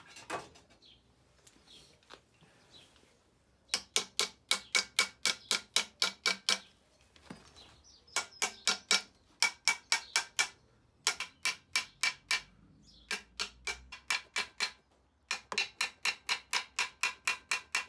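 Small hammer tapping a new wheel bearing on an MGB half shaft into the rear axle casing: runs of sharp, ringing metallic taps, about four a second, with short pauses between runs. The bearing is still moving in and not yet seated.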